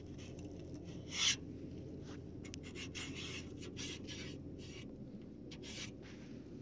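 Faint, irregular rubbing and scraping noises, with one short louder rasp about a second in, over a steady low hum.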